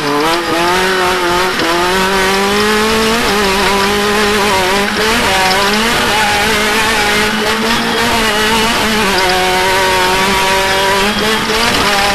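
Off-road race car engine running hard at high revs, its pitch climbing and dipping again and again with the throttle.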